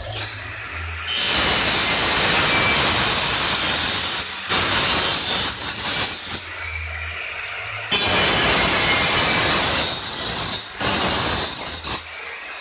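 A handheld electric tile cutter grinds into a ceramic floor tile in three loud passes, about a second in, near eight seconds and near eleven seconds. Between passes the motor spins free at a lower, steady level. The passes cut a circular opening in the tile.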